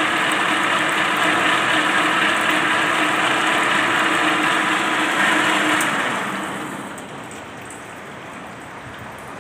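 Centre lathe running through a facing cut on a round bar, with a steady motor hum under coolant water splashing over the tool and workpiece. About six seconds in the lathe is switched off and runs down, leaving the coolant water still pouring.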